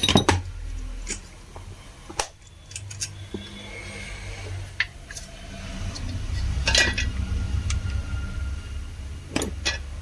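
Small metal parts and tools clinking and knocking as they are handled during a drill repair, a few separate sharp clinks over a low handling rumble that grows louder past the middle.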